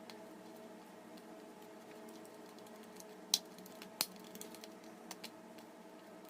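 Slime being squished and mixed with oil by hand: scattered small sticky clicks and pops, with two sharper ones about three and four seconds in, over a steady low hum.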